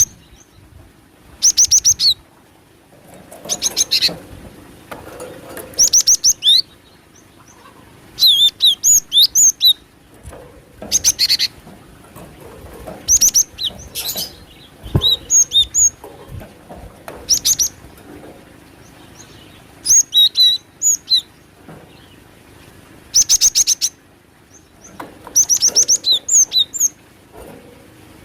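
Cinereous tit (glatik batu) calling: short, high-pitched phrases of rapid chirps and trills, repeated about every two seconds, played as a lure call mixing male and female calls.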